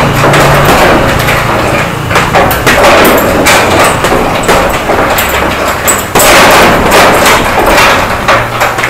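Boxing gloves punching a hanging heavy bag: a fast, irregular run of loud thuds.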